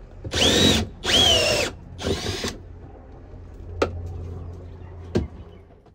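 Cordless drill with a step bit run in three short bursts, the motor whine rising and falling with each burst. After that comes a quieter low hum, with two sharp clicks near the end.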